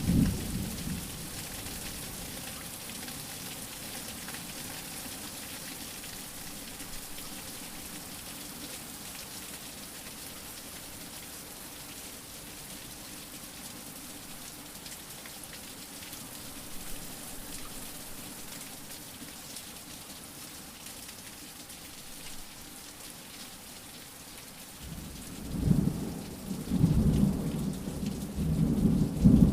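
Steady rain hissing, with thunder rumbling: a brief rumble at the start and a longer, louder roll over the last few seconds.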